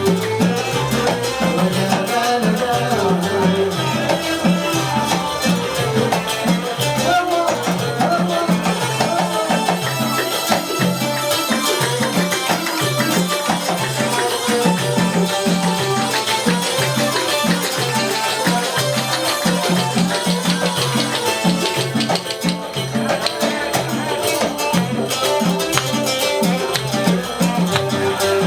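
Arabic wedding music with a steady, driving rhythm of drums and a rattling, shaker-like percussion layer, with no clear singing.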